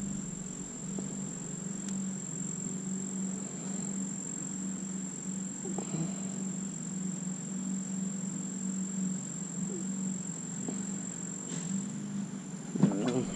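A steady, high-pitched insect trill, typical of crickets, over a faint low pulsing hum, with a brief clatter near the end.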